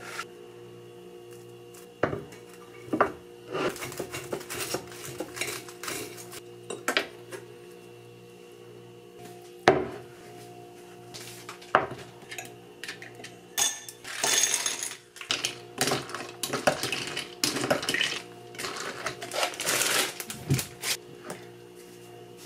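Kitchen handling sounds: scattered knocks and clinks of a drinking glass, a glass jar and utensils on a stone counter. The clinks come thicker in the second half, with a short scraping, rustling stretch about two thirds of the way through.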